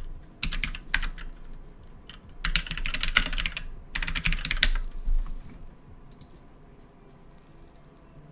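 Computer keyboard typing in three quick runs of keystrokes over the first five seconds, then it stops. This is a command being typed at a prompt, the group policy update "gpupdate /force".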